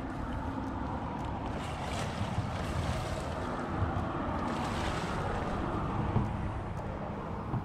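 Wind buffeting the microphone over water sloshing against a rocky shoreline, with a couple of louder swells of splashing as a man wades and handles a large hooked fish in the shallows.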